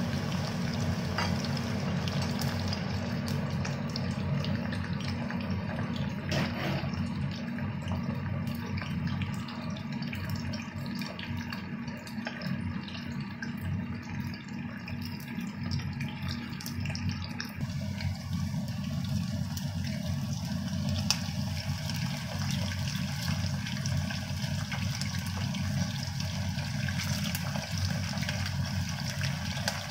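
Pandan-leaf-wrapped chicken pieces deep-frying in a saucepan of hot oil: a steady sizzle with many small scattered crackles.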